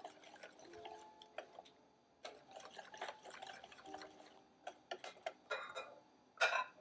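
Wire whisk beating a runny yellow mixture in a glass bowl, its tines clicking and ticking against the glass in quick, uneven strokes, with one louder clatter near the end. Faint music plays underneath.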